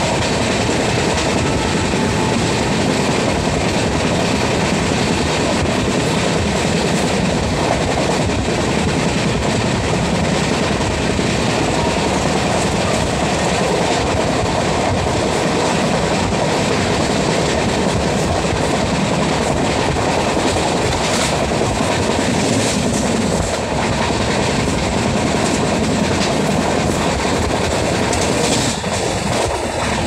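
Train running at speed, heard from on board: a loud, steady rumble of wheels on the rails with no let-up. A thin, steady whistle-like tone joins near the end.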